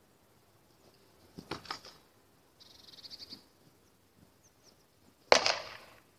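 Waster striking a wooden pell: a quick cluster of knocks about a second and a half in, then one hard crack near the end, the loudest. A short buzzy rattle comes in between.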